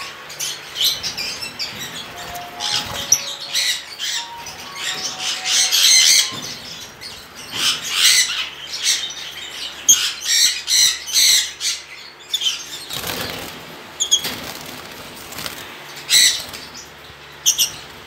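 Caged lovebirds and a budgerigar giving many short, irregular bursts of shrill chatter and wing flutters. Faint background music plays underneath.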